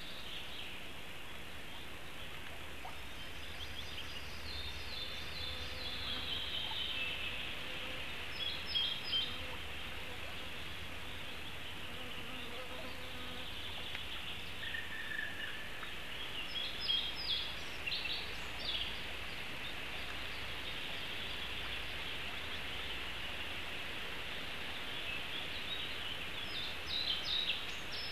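Forest birds singing: short high trilled phrases come a few times, a few seconds apart, over a steady high hiss and a low hum.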